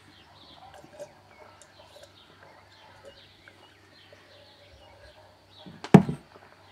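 Faint birds chirping throughout. About six seconds in, a single loud knock as a drinking glass is set down on the table.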